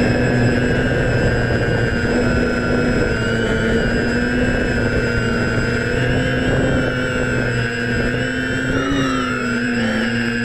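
Electric motors and propellers of a DJI F550 Flamewheel hexacopter whining steadily in flight, heard up close from the GoPro mounted on its frame. The pitch dips briefly and rises again about nine seconds in.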